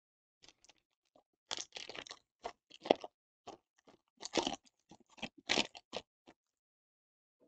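Plastic-foil trading card pack wrapper crinkling and tearing as it is ripped open by hand, in a run of short crackling bursts.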